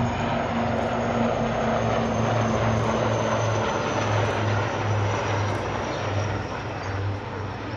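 Three HAL Light Combat Helicopters flying past in formation. A regular low pulsing beat from the rotors sits under a steady rushing of engine and rotor noise, easing off slightly near the end.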